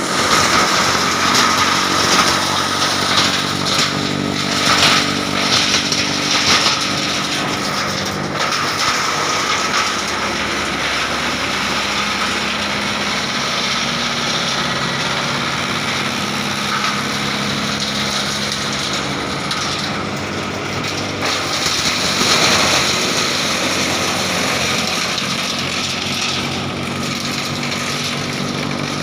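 Heavy-duty double-rotor wood chipper running steadily, with louder, noisier surges a few seconds in and again about three-quarters through.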